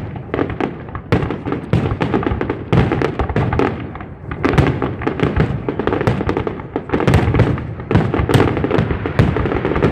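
Aerial fireworks display with many shell bursts going off in quick, overlapping succession, several bangs a second.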